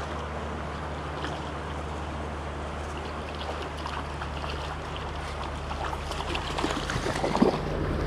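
Shallow creek water running steadily over rocks under a steady low hum, with a small hooked rainbow trout splashing at the surface near the end as it is brought in to the landing net.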